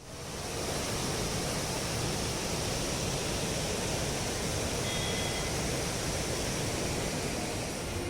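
Steady rush of a waterfall, starting abruptly and holding level.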